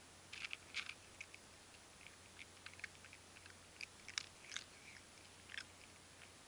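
Cat chewing food, faint irregular clicks and smacks of eating, with the busiest stretches about half a second in and again around four to five and a half seconds.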